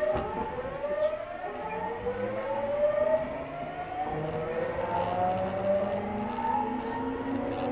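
Tokyu 9000-series EMU accelerating, heard from inside a motor car: the GTO-thyristor VVVF inverter whine rises in pitch as several tones together, falls back and climbs again a few times as speed builds, over the running noise of the wheels.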